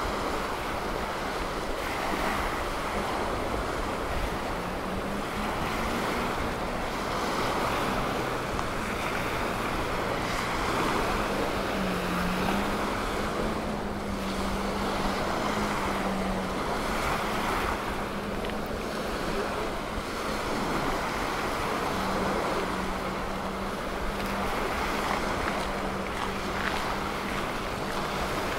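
Small waves washing on a sandy beach, swelling and easing every few seconds, with wind on the microphone. A faint steady engine-like hum runs underneath.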